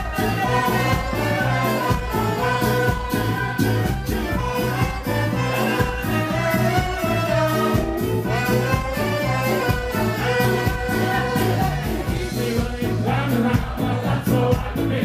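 Ska band playing live: a steady drum and bass beat under horns and singing.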